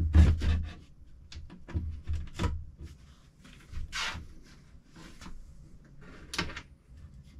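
Glazed wooden cabin door being handled and fitted: a heavy knock of the wooden frame at the start, then scattered knocks, rubs and sharp clicks of wood and its metal fittings, with a louder click near the end.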